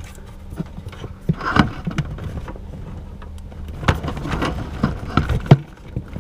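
Cables and plastic plugs being handled and fitted by hand: scattered clicks and knocks, the sharpest about five and a half seconds in, over a steady low hum.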